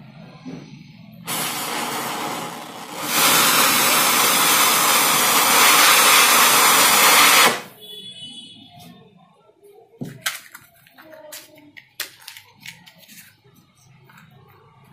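Gas jetting from the syringe-needle nozzle of a homemade bottle gas generator, with a steady hiss. The hiss starts about a second in, grows louder at about three seconds and cuts off abruptly after about seven and a half seconds. Faint clicks and rustles of a matchbox being handled follow.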